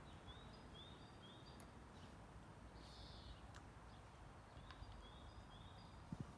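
Near silence with faint birdsong: a small bird gives a phrase of three or four short chirps twice, with a brief harsh note between. Two soft low knocks come near the end.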